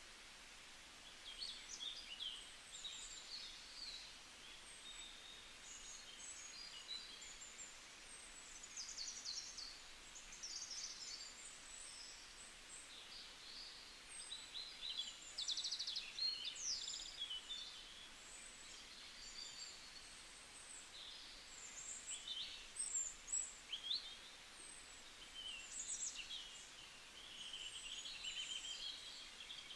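Several songbirds singing and calling at once in a forest, a busy mix of short high chirps, trills and quick whistled phrases, over a faint steady background hiss.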